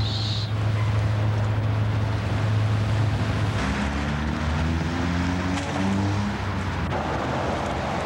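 Steady rush of creek water over rocks, with a low hum beneath it. About halfway through, the hum turns to a wavering tone that shifts up and down in pitch.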